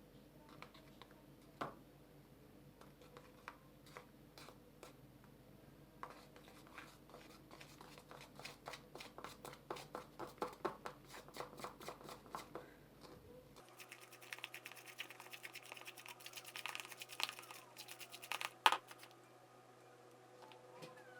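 Homemade egg-and-flour slime being worked, with sticky clicking and crackling: scattered at first, then a fast dense run, then more crackling with one sharper click near the end.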